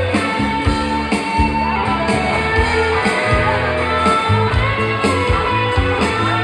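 Live band playing amplified dance music: electric guitar over bass and a steady drum beat.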